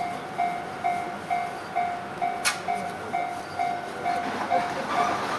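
Japanese level crossing warning bell ringing in a steady repeating clang, about two strokes a second, as a freight train rolls over the crossing. A single sharp click sounds about halfway through.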